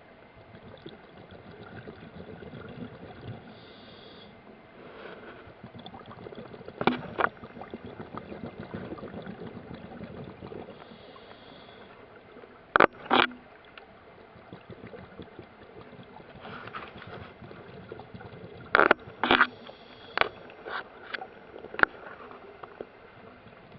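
Sharp knocks and clicks on an underwater camera housing as it is prodded at a Dungeness crab, coming singly and in short clusters, over steady rushing underwater water noise.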